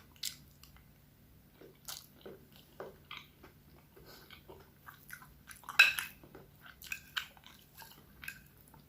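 A person chewing food close to the microphone: scattered wet mouth sounds, soft crunches and small clicks, with a louder burst of chewing about six seconds in.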